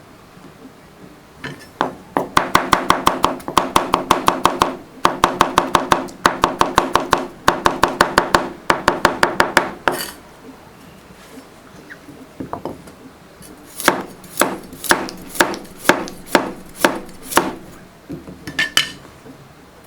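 Kitchen knife chopping vegetables on a cutting board: fast, even runs of strokes for several seconds, then after a pause a slower series of single cuts.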